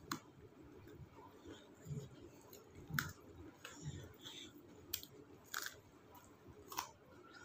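Quiet eating sounds of rice and chicken curry eaten by hand: chewing, with about five sharp mouth clicks and smacks scattered through.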